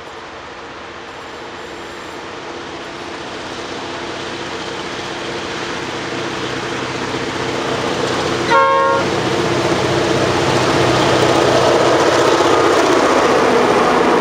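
Two Victorian X class diesel-electric locomotives working hard under load up a grade with a container freight train, their engines growing steadily louder as they approach and pass close by. A short horn blast sounds about two-thirds of the way through.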